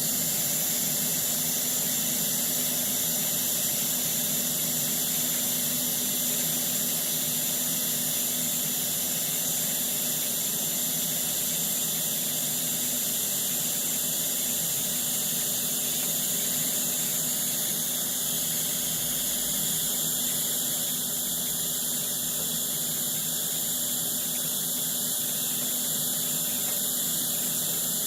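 Steady hiss of a TIG welding arc with a low, even buzz beneath it, running unbroken.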